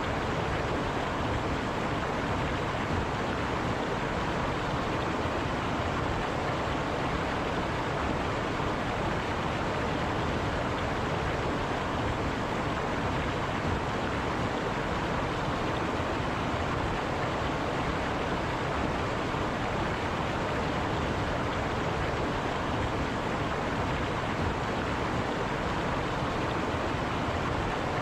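River water rushing over rocks, a steady even rush.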